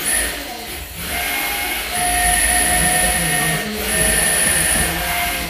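Small combat robots' electric motors whining at a high pitch, cutting in and out in stretches of about a second.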